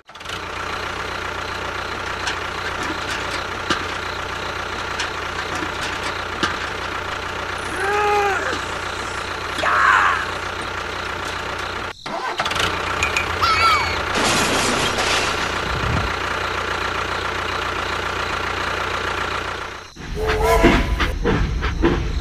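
Steady engine sound of a tractor idling and running, with a few short rising-and-falling chirps around 8 and 10 seconds in and again near 14 seconds. It breaks off sharply twice, about 12 and 20 seconds in. In the last two seconds a toy train rattles along its track.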